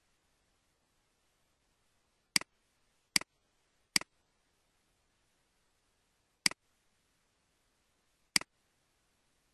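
Computer mouse button clicked five times, each a sharp press followed at once by a fainter release. Three come about a second apart, then two more at longer gaps, with near silence between.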